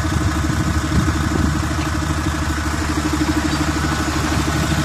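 An engine running steadily at idle, an even hum that does not change, such as the generator or power unit driving a pipe butt-fusion machine.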